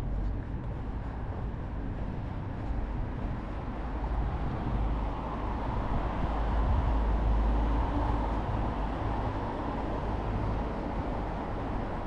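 A vehicle passing in city traffic: a low rumble that swells to its loudest about six to eight seconds in, then eases back into steady street noise.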